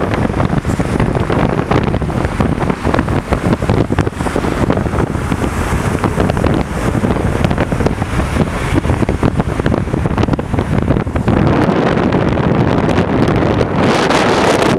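Wind buffeting hard on the microphone of a camera on a motorcycle at highway speed, with road and engine noise underneath. It gets louder about eleven seconds in.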